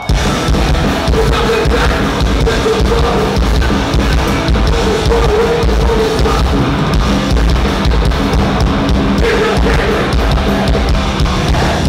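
Hardcore punk band playing live at full volume: distorted electric guitars, bass and drum kit, all kicking in together at the very start.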